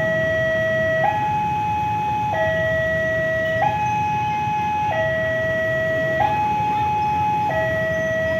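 Railway level-crossing warning alarm sounding: an electronic two-tone signal that switches between a high and a low tone, each held a little over a second, with a low steady rumble beneath.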